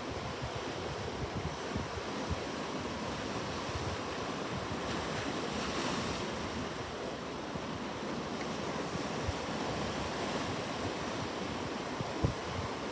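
Sea waves washing ashore in a steady surf, swelling a little louder about halfway through, with wind buffeting the microphone in low thumps.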